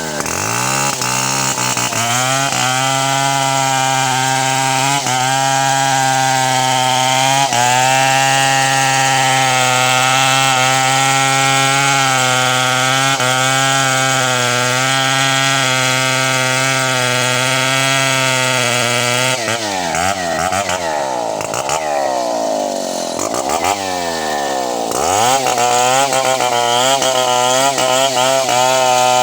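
Chainsaw running near full throttle, cutting wood. Engine speed rises and falls repeatedly about two-thirds of the way through, then holds steady again.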